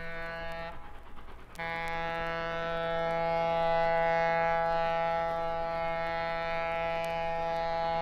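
Steam locomotive whistle blowing a short blast, then after about a second a long, steady blast. Together with the blast just before, this is the close of a grade-crossing signal.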